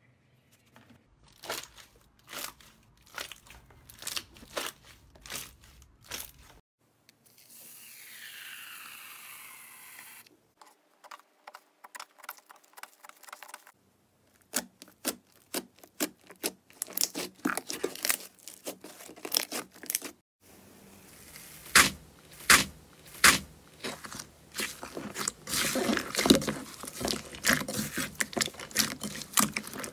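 Slime being squeezed, pressed and poked by hand in a run of short clips: irregular sharp clicks, pops and crackles that grow dense in the second half. A short stretch of even hiss comes about a third of the way in.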